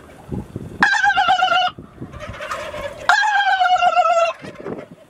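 Wild turkey tom gobbling twice, each gobble a loud rattling call that drops slightly in pitch, the second starting about two seconds after the first ends.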